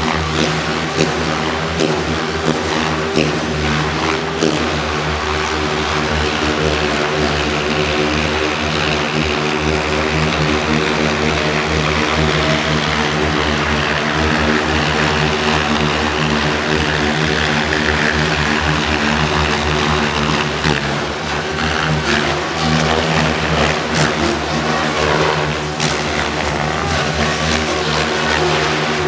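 Radio-controlled aerobatic helicopter flying hard 3D manoeuvres: the rotor and motor hold a steady droning pitch while the blades swish and whoosh as it flips and tumbles, the whoosh swelling through the middle.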